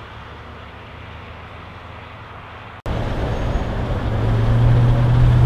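Chevrolet Silverado 1500 pickup driving, heard from the cab: a quiet low rumble of engine and tyres, then, after a cut about three seconds in, louder road noise with a steady low engine drone that grows louder toward the end.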